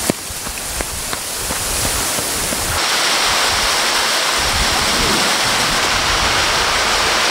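Footsteps and rustling as someone runs through grass, with a few scattered knocks. About three seconds in, a dense, steady hiss of heavy rain comes in and continues.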